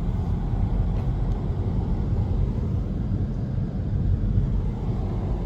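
Car driving along: a steady low rumble of road and engine noise.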